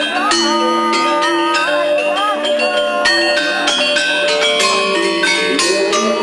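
Balinese gamelan music: metallophones playing a steady flow of struck, ringing notes that overlap one another, with a wavering melody line bending above them.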